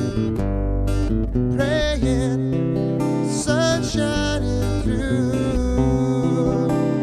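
An acoustic song: acoustic guitar and acoustic bass playing, with a man's voice singing over them from about a second and a half in.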